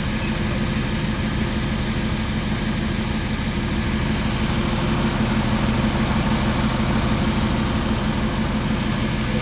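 Fire engine running steadily at a constant speed, a low, even engine drone.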